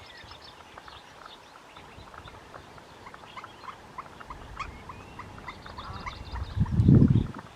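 Wetland birds chirping, many short high calls and ticks overlapping. Near the end comes a brief, loud, low thump or rumble.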